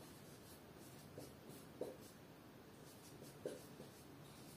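Marker pen writing on a whiteboard: faint scratchy strokes, with a few short squeaks, the clearest about two seconds in and again about three and a half seconds in.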